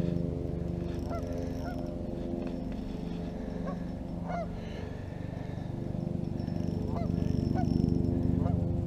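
Short honking bird calls, roughly one a second, over a steady low hum.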